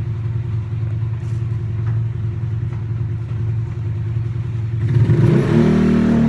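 A steady low hum, like a running engine heard from inside a vehicle. About five seconds in it is joined by louder music.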